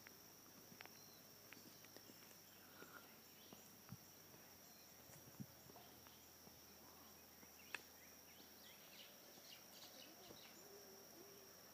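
Near silence: a faint, steady, high-pitched insect trill with a few soft clicks.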